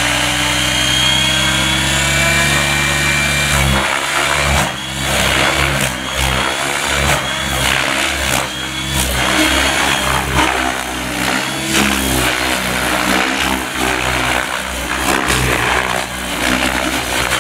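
Gaui X7 RC helicopter at low head speed: a steady hum for about the first four seconds, then an uneven rotor whoosh with repeated surges and changes in pitch as it flies flips and aerobatic manoeuvres.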